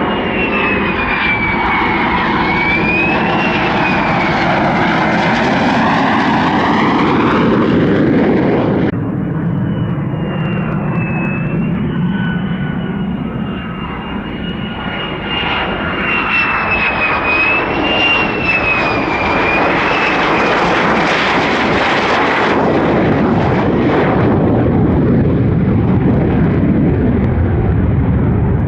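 F-35A fighter's single Pratt & Whitney F135 jet engine, loud and continuous, with a high whine that wavers in pitch over a broad rumble. The sound changes abruptly about nine seconds in, then builds again.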